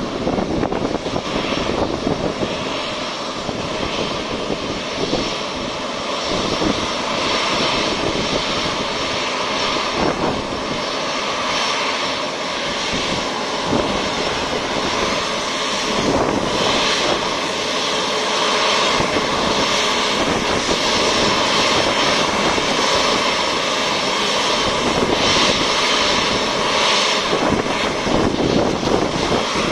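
Airbus A350's Rolls-Royce Trent XWB turbofans running at taxi power, a steady jet whine and rush that slowly grows louder as the airliner approaches.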